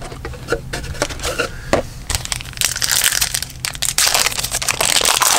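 Trading card pack wrapper crinkling and tearing as it is ripped open. A few scattered crackles at first, then dense, loud crinkling from about two seconds in.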